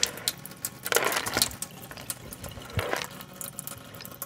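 Dry pinto beans stirred by hand in a bowl of rinse water: water sloshing, with many quick clicks of beans against each other and the bowl. Louder swishes come about a second in and again near three seconds.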